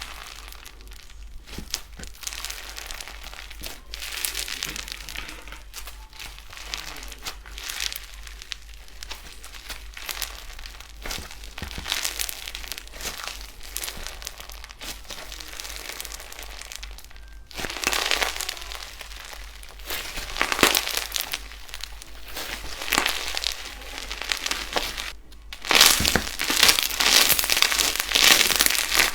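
Slime being squeezed, pressed and poked by hand, giving a dense, continuous crackling and crinkling. It grows louder about two-thirds of the way through and again near the end.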